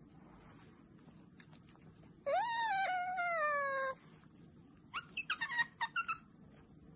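An otter calling: one long whining call about two seconds in, rising quickly and then slowly falling in pitch over about a second and a half, then a quick run of short squeaks near the end.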